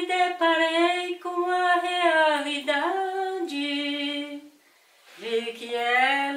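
A woman singing a slow unaccompanied melody in long held, gliding notes, breaking off briefly about four and a half seconds in before going on.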